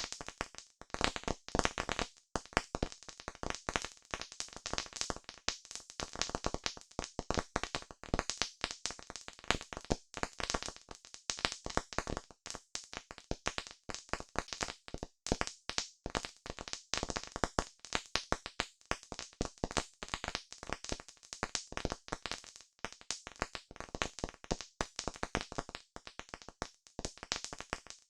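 Campfire crackling: a dense, continuous run of sharp snaps and pops, many each second, with no pause.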